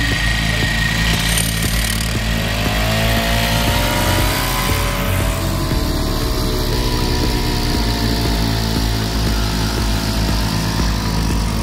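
Small petrol engine of a Neptune PW-768 portable power sprayer running steadily and driving its pump. Its pitch rises about two seconds in and then holds, as the throttle is opened.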